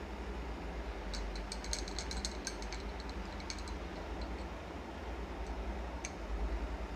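Light clicks and taps from handling cornflour-coated koftas and setting them on a steel plate: a quick cluster in the first few seconds and one more near the end, over a steady low hum.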